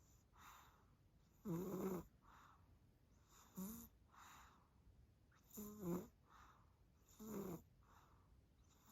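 A tired baby snoring in its sleep: four short, pitched snores about every two seconds, with soft breaths between them.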